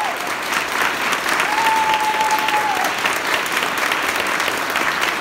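Audience clapping steadily after a piano performance, with one long high-pitched call from the crowd about a second and a half in.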